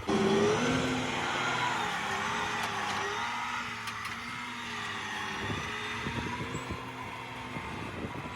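A heavy engine running, its pitch rising and falling as it works, with some knocks and clatter in the second half.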